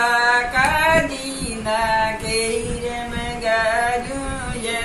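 A woman singing a Marwari (Rajasthani) wedding song solo, holding long notes that slide from one pitch to the next.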